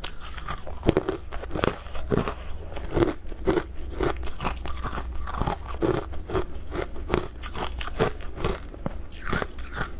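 Hard amber crystal candy, which looks like rock sugar, being bitten and crunched in the mouth, picked up close. Sharp crunches come about two a second as the chunk is chewed up.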